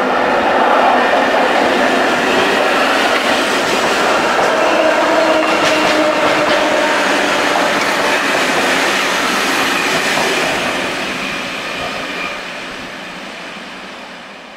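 CFL Série 2000 electric multiple unit passing by on the track: loud for about ten seconds, then fading as it moves away.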